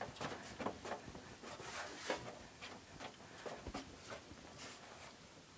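A cloth rag wiping the glass screen of a CRT television: faint, irregular rubbing strokes.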